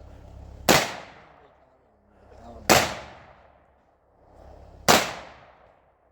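Three pistol shots about two seconds apart, fired at a walking pace, one on each right-foot step.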